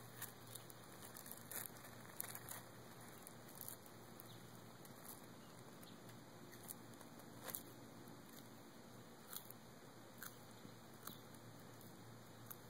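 Near silence with faint, scattered crunching clicks: a desert tortoise biting lettuce held out by hand and shuffling its feet on gravel.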